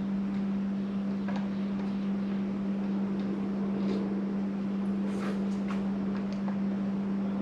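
A steady low hum throughout, with a few light clicks and taps of screws being backed out of a motorcycle windscreen with a Phillips screwdriver.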